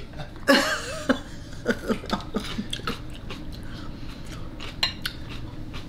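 A short throaty vocal burst about half a second in, then a run of light clicks and crunches from a fork on a plate and a mouthful of lettuce salad being bitten and chewed.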